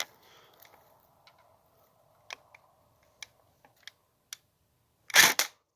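An airsoft rifle fires a single shot about five seconds in, a short loud pop, after a few faint mechanical clicks as the gun is aimed.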